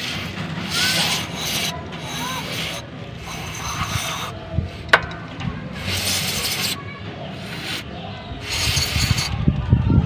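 Aerosol cleaner hissing out through a thin straw nozzle in about five short bursts, cleaning a MAP sensor clogged with dirt. There is a sharp click about halfway through.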